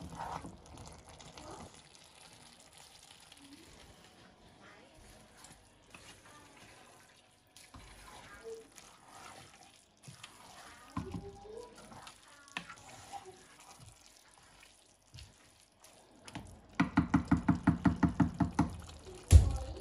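Wooden spoon stirring and scraping rice in a pot, soft and intermittent. Near the end comes a quick loud run of about fifteen rhythmic knocks, then one sharp thump.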